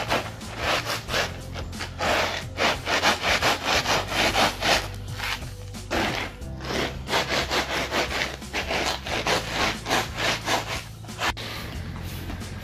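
Shoe soles scuffing and grinding clay kitty litter into an oil spill on a concrete floor, a rapid run of gritty scrapes, about three a second, that stops about eleven seconds in.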